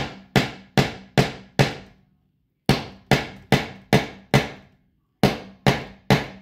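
Claw hammer driving a nail into wood with hard, evenly spaced blows, about two and a half a second. There are two runs of five blows with a short pause between, then three more near the end. The blows are hard enough to send the nail all the way in.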